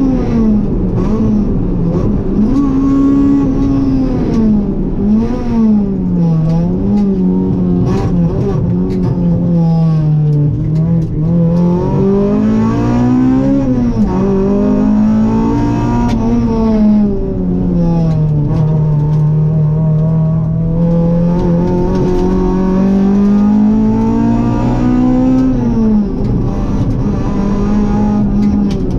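Rally car engine heard from inside the cockpit, its pitch rising and falling again and again as the driver accelerates, changes gear and lifts off, with a few seconds held at steady revs past the middle. Sharp clicks and knocks come through now and then.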